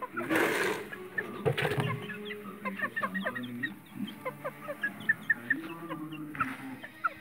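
Polish chickens calling and clucking, with many short high cheeps throughout. A brief rustling noise comes shortly after the start and again near the end.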